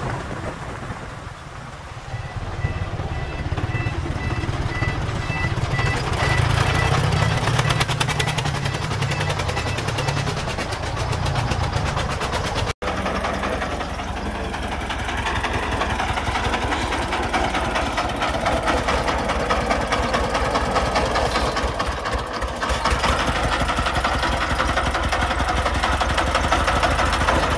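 Diesel engine of a loaded three-wheeled công nông dump truck running with a rapid knocking beat as the truck drives, then pulling it over loose soil, the note rising in the second half. A run of short, high beeps sounds for a few seconds near the start.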